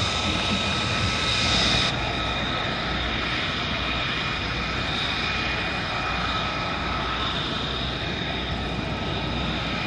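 C-17 Globemaster III's four turbofan engines running on approach with the gear down: a steady jet rush with a few held high whining tones.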